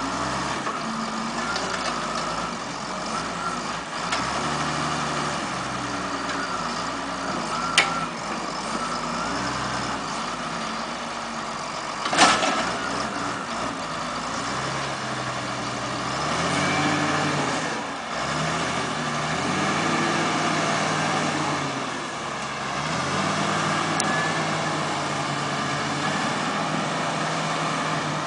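Engine of a heavy log-handling vehicle running and revving up and down as it works. There is a sharp click about eight seconds in and a louder bang about twelve seconds in.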